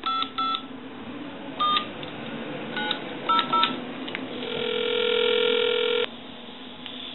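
Touch-tone dialing on an M&M's animated telephone, heard over the phone line: a string of short DTMF beeps as the number is keyed in. About 4.5 s in comes one ringback tone, about a second and a half long, as the call goes through.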